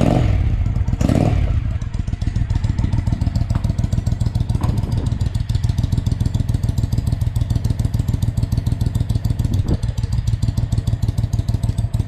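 Triumph Speedmaster 865 parallel-twin engine running through Staintune exhaust pipes with the baffles removed. It revs briefly twice in the first couple of seconds, then settles to a steady idle.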